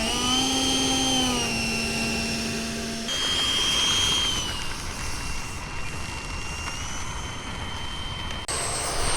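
80mm electric ducted fan model jet running with a high-pitched whine, its pitch shifting and stepping a few times, over wind noise.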